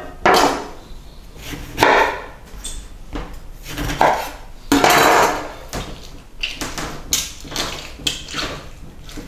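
A kitchen knife cutting an orange in half on a wooden cutting board, with a few separate knocks of blade and fruit on the board, then lighter clicks and scrapes near the end as an orange half is worked on a small plastic hand citrus juicer.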